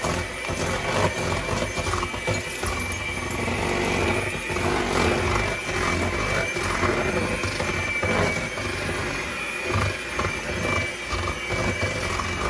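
Electric hand mixer running steadily, its beaters churning thick cream-cheese batter in a glass bowl, with a steady high-pitched motor whine.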